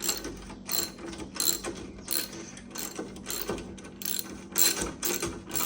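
Hand ratchet socket wrench turning a bolt, its pawl clicking in a steady run of short strokes, about two to three a second.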